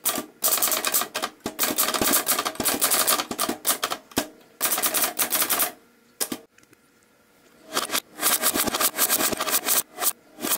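Typewriter typing: quick runs of typebars striking the paper, with a short pause about four seconds in and a longer pause of about two seconds around the middle, then a final run.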